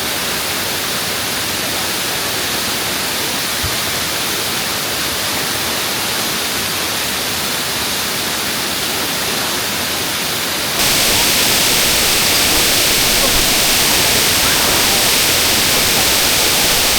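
Waterfall rushing in a steady, loud roar of falling water, which becomes suddenly louder and brighter about eleven seconds in.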